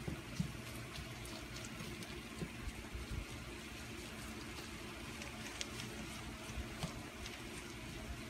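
Browned ground beef sizzling in a frying pan while taco sauce is stirred into it with a wooden spoon. There is a steady sizzle with small scattered ticks and scrapes.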